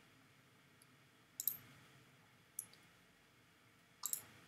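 Computer mouse clicks while selecting and placing a part on screen: a quick pair of sharp clicks about a second and a half in, a single click a second later, and another pair near the end.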